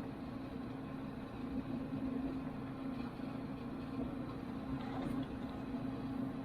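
A steady low mechanical hum holding one pitch, over a faint background rush.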